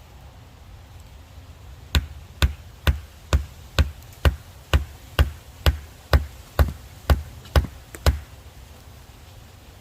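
A sledgehammer driving wedges in behind a shelter post: about fourteen steady blows at roughly two a second, stopping about eight seconds in.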